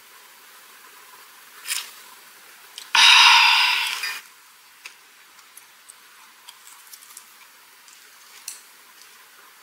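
Light clicks and taps of chopsticks and food being handled at a table. About three seconds in comes one loud, breathy rush of sound that starts suddenly and fades over about a second.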